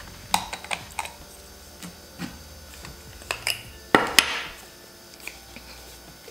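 Plastic camera body cap and lens rear cap being twisted off and set down on a table: a scattered series of small clicks and taps, the loudest pair about four seconds in.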